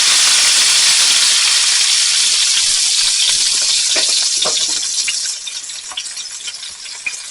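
Beef roast searing in hot olive oil in a cast iron skillet: a loud sizzle that dies down after about five seconds to a quieter crackle with scattered pops.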